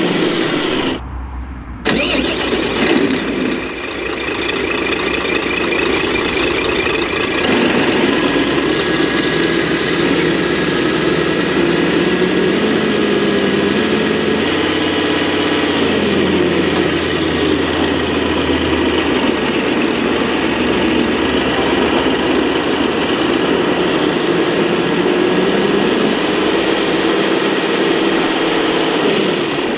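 Truck engine sound from scale RC crawler trucks, a pitched drone that rises and falls in pitch several times as the trucks crawl, with a steady high whine above it. It drops out briefly about a second in.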